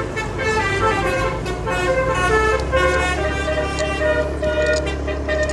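A telolet multi-tone horn on an Indonesian angkot minibus playing a tune of short notes that change pitch, over the steady low hum of the minibus engine running.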